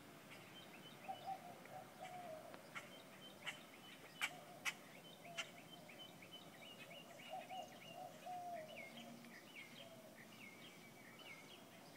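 Faint morning bird chorus: small birds repeating short, high chirps throughout, under lower wavering cooing phrases of mourning doves, twice. A few sharp clicks come in quick succession around the middle.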